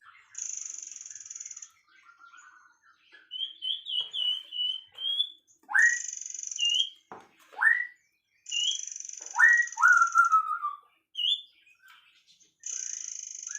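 Songbirds singing and calling: several buzzy, high trills about a second long, short sharply rising whistled notes, and quick warbling phrases.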